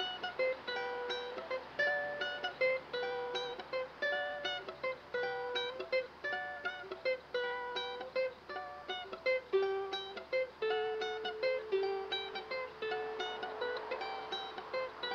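Music: a plucked string instrument playing a quick melody of short picked notes, with a few longer held notes in the second half.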